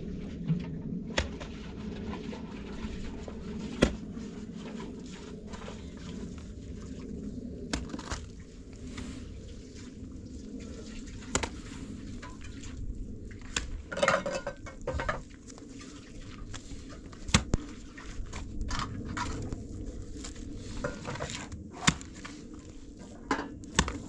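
Scattered sharp clinks and knocks of metal cookware and tools being handled, over a steady low background rumble.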